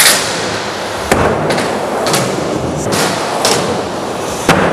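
Skateboard wheels rolling on the skatepark floor and ramps, with about seven sharp clacks and slaps of the board: tail pops and landings.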